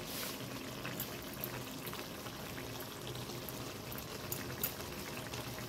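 Chicken and taro-leaf curry simmering in a wok: a steady bubbling with scattered small pops.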